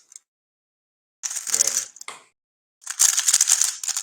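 A 3x3 speedcube being turned rapidly, its plastic layers clicking and clacking in fast runs. A short burst comes about a second in, then a longer one after a brief pause.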